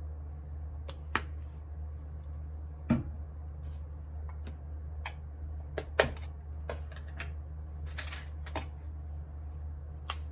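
Irregular light clicks and taps, about a dozen, unevenly spaced, over a steady low hum; the sharpest come about three and six seconds in.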